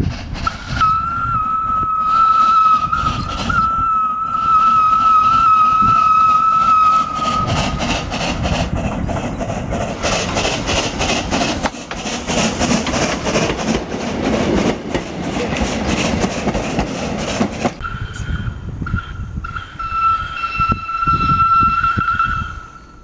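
A steam locomotive whistle sounds in one long, steady blast of about seven seconds. Loud steam noise with rapid exhaust chuffing follows as a steam engine works. A second long whistle blast comes in the last few seconds.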